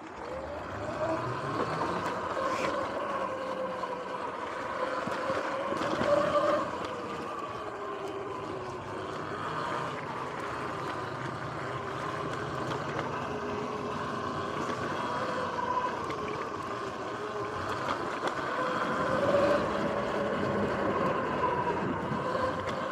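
Sur-Ron X electric dirt bike under way, its motor and drivetrain giving a steady whine that rises and falls in pitch with speed, over tyre and wind noise. It picks up as the bike pulls away just at the start.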